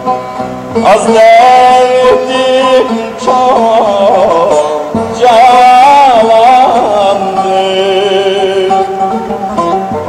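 Turkish folk music: a wavering, ornamented melody over a steady held drone.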